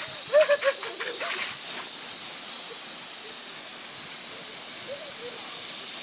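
Garden hose spray hissing steadily. In the first second or so a young child gives a few short, high squeals.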